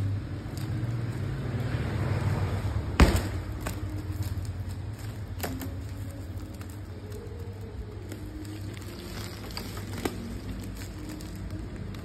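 Scissors cutting the plastic strapping on a shrink-wrapped clothing bale: one sharp, loud snap about three seconds in and a few lighter clicks later, with plastic wrap rustling, over a steady low background rumble.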